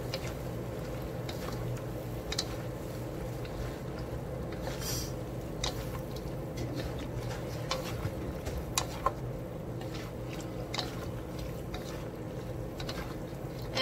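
Two wooden spatulas stirring and tossing vegetables and meat in a wok: soft scrapes and scattered light clicks, over a steady low hum.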